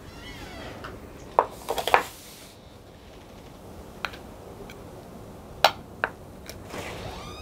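A metal spoon clinking against a small steel bowl. There is a quick run of sharp clinks about a second and a half in, then single clinks every second or two.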